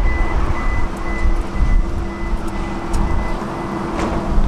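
Tram running along the track: a low rumble with a steady hum, and a single sharp click about four seconds in.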